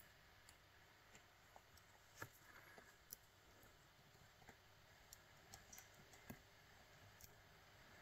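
Faint, scattered clicks and ticks of a lock pick and tension wrench working in the keyway of a brass lock cylinder, the sharpest about two, three and six seconds in.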